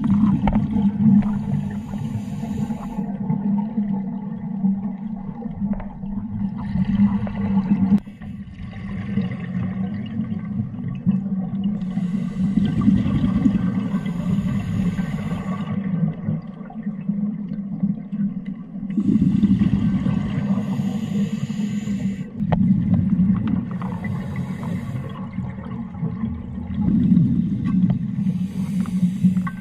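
Scuba regulator breathing recorded underwater: exhaled bubbles burble and gush in surges every several seconds over a constant low rumble.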